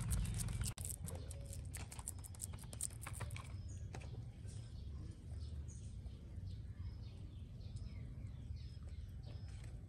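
A metal spoon pressing and scraping minced pork on a banana leaf, a run of small quick clicks. From about three and a half seconds in, birds chirp repeatedly over a steady low hum.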